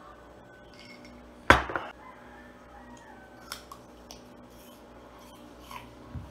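Glass tableware knocking on a hard table: one loud clunk with a brief ring about a second and a half in, then a few light clinks of glass and cutlery.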